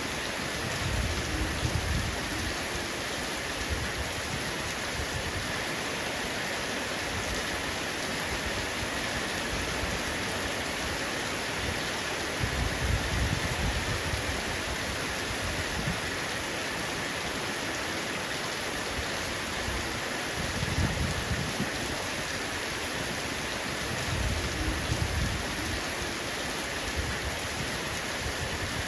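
Heavy rain falling steadily on a roof, an even hiss of drops. Low rumbles swell up beneath it about four times.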